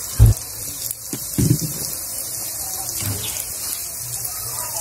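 Steady rain-like hiss of background noise, with a dull low thump about a quarter second in and a second one about a second and a half in.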